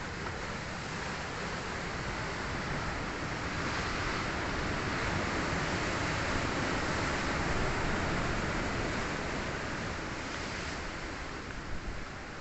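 Sea waves surging and breaking, a noisy rush that builds over a few seconds, peaks near the middle and eases off again.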